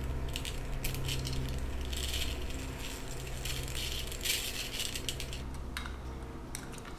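Cut-off plastic water-bottle bottom, used as a planchette, scraping and sliding across a paper Ouija board under fingertips in several uneven scratchy strokes, over a faint steady low hum.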